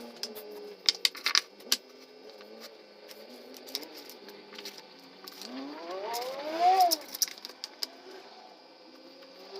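Sharp clicks and taps of wooden picture-frame parts and tools being handled, sped up, the loudest cluster about a second in. About five and a half seconds in, a small motor's whine rises in pitch for over a second, then drops off quickly.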